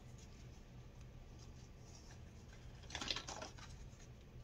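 Faint rustling and crinkling of plastic blister-card cosmetic packaging being handled, with a brief flurry about three seconds in.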